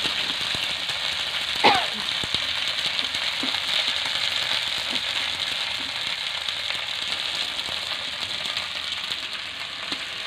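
Potatoes and spice paste sizzling steadily in hot oil in a metal wok, with light clicks of a metal spatula stirring; one brief sharper sound about two seconds in.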